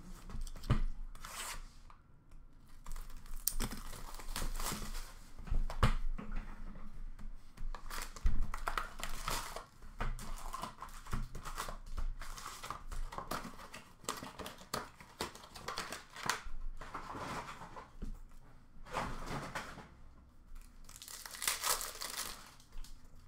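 Trading-card box and pack wrappers being torn open and crinkled, with continuous irregular rustling and crackling. A few sharp knocks in the first several seconds, as the box is handled.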